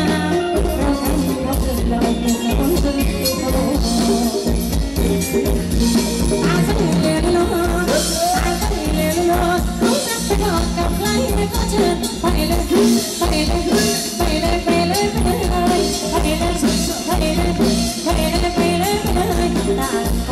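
A live band playing Thai ram wong dance music with a steady beat and a singer.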